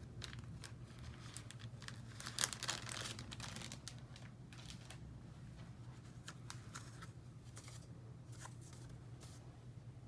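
Packaging being handled and opened: crinkling, rustling and tearing, with a louder burst of tearing about two and a half seconds in, over a low steady hum.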